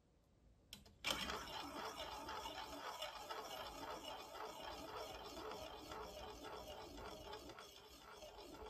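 Glass marble dropped into a plastic spiral funnel of a block marble run, landing with a sharp click about a second in, then rolling round and round the bowl with a steady rattling whirr that slowly fades.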